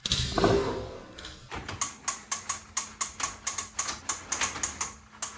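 Plastic mechanism of a ThunderROARus Drop toy playset clicking steadily, about four sharp clicks a second, as the girl works the tower to send up the next die-cast truck. A short thump comes at the very start, before the clicking.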